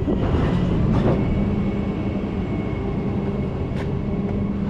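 A vehicle's engine idling steadily with a low, even hum. Two brief clicks come through over it.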